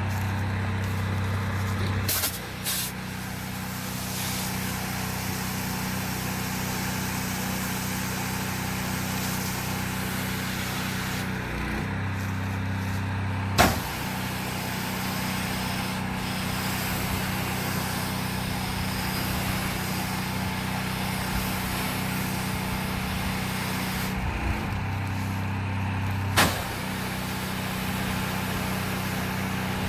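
Predator 4400 PSI gas pressure washer running steadily under a broad spray hiss, sending soap and bleach through the line at low pressure. Three times the engine's hum changes for a couple of seconds, each time ending in a sharp click.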